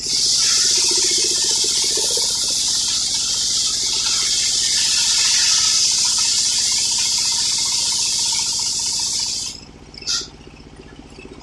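Homemade circular sawmill blade cutting through old coconut-palm wood: a loud, steady high hiss for about nine and a half seconds that cuts off suddenly, with a short burst of it about half a second later. The mill's engine runs steadily underneath.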